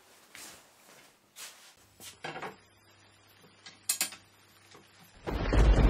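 Light metallic clicks and knocks of an aluminium motorcycle luggage rack being handled and fitted to a motorbike's tail. About five seconds in, a loud, low rumbling noise starts suddenly and becomes the loudest sound.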